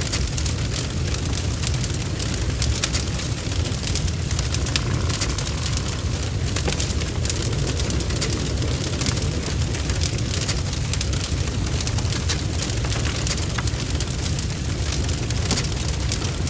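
Large barn fire burning: dense, irregular crackling and spitting over a steady low rumble.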